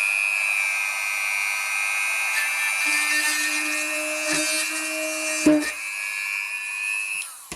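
Small rotary drill with a 1.5 mm bit running at raised speed with a steady high whine as it bores into a broken-off headphone jack plug lodged in an iPad's socket. A couple of light clicks come near the middle and a sharp knock about five and a half seconds in. The drill stops near the end.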